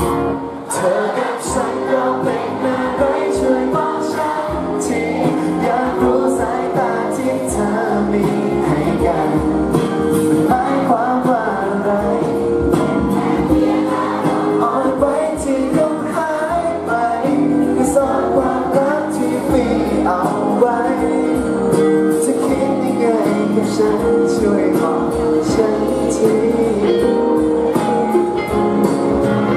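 A male singer sings a Thai pop ballad live into a handheld microphone, with instrumental accompaniment.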